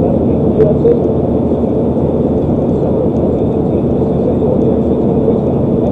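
Steady engine and road noise heard inside a truck cab cruising at highway speed: a continuous low rumble.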